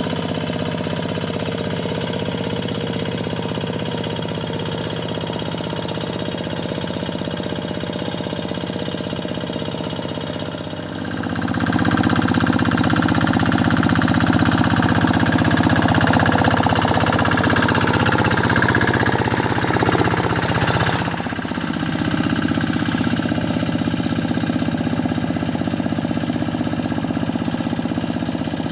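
Rice-paddy tractor's diesel engine running with a knocking clatter while working in deep mud. About eleven seconds in it gets louder under load, then about ten seconds later falls in pitch and settles back to a steadier run.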